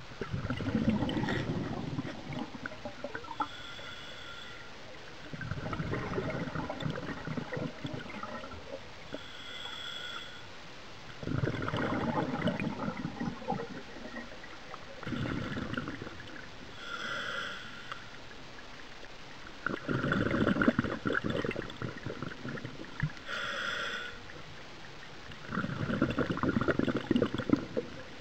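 Scuba diver breathing through a regulator underwater: six bubbling exhalations, each one or two seconds long and coming every four to five seconds, with short hissing inhalations between them.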